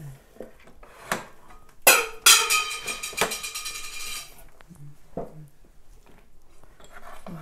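Kitchen dish or utensil clatter: a light click, then two sharp knocks about two seconds in, the second ringing on for about two seconds before fading.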